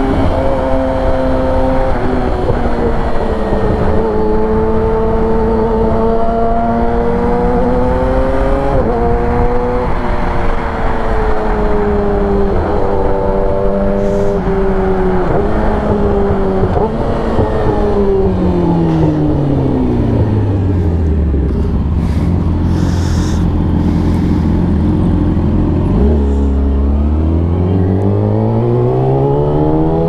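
Yamaha R6 sport bike's inline-four engine on the move, with wind noise. Its pitch rises and dips in steps through the first half, falls steadily as the bike slows about two-thirds of the way through, sits low for a few seconds, then climbs again as it accelerates near the end.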